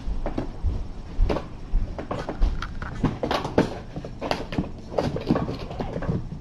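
Several kittens running, pouncing and wrestling: an irregular, busy patter of light thumps and taps from their paws and bodies landing.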